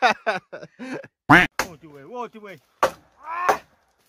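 A man laughing loudly in several short bouts, rising and falling in pitch.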